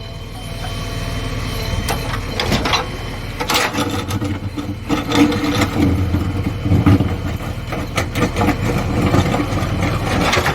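JCB 3DX backhoe loader's diesel engine running steadily, with several sharp knocks spread through it.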